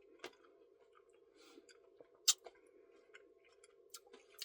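Faint eating sounds: a few sharp clicks of a spoon and mouth, with some chewing, over a low steady hum.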